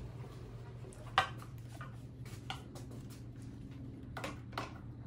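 Scattered light clicks and metallic taps from fitting a mirror onto an ATV handlebar mount, the sharpest about a second in and a few more near the end.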